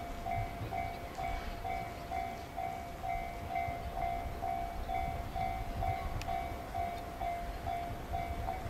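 Electronic warning bell of a Japanese level crossing ringing steadily at about two and a half dings a second, stopping near the end, over the low rumble of a 169 series electric multiple unit pulling slowly out over the points. A single sharp click about six seconds in.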